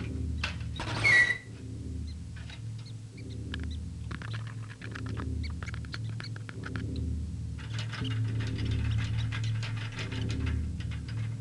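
Animated rat sound effects: small scattered ticks and patter, with a short squeak-like burst about a second in, over a low hum that swells and fades repeatedly.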